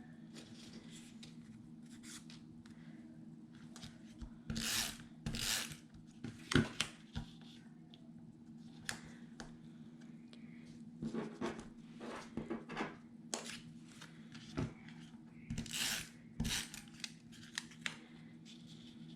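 Paper being handled and slid across a work surface: irregular rustling swishes with light clicks, the loudest swishes about five seconds in and again near sixteen seconds.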